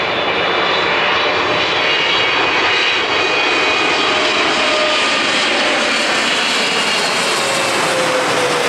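Boeing 777-300ER's twin GE90 turbofan engines at approach power as the airliner passes low overhead on final approach with its gear down: a steady, loud jet roar with faint whining tones that slowly drop in pitch toward the end as it goes by.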